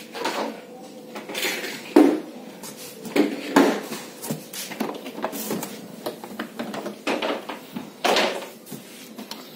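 Hard plastic wardrobe panels being handled in and out of their cardboard box: irregular clattering knocks of plastic on plastic with scraping and rustling of cardboard. The loudest knock comes about two seconds in, with more around the middle and near the end.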